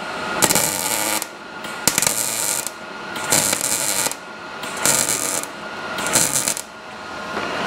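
Welding arc crackling on sheet steel in five short bursts, each under a second, with pauses between: stitch welding on a quarter panel.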